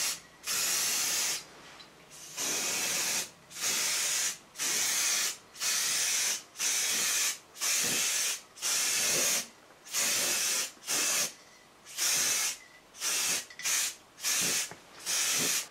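Aerosol spray can of white primer hissing in more than a dozen short bursts, each about half a second to a second long with brief pauses between. The primer is going onto sanded filler repairs on car bodywork.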